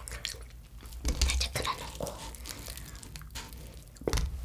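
The breaded, fried crust of a long cheese stick crackling and tearing as it is broken apart by hand, picked up close for eating-sound recording. The crackling is loudest about a second in, and there is a dull knock against the wooden board near the end.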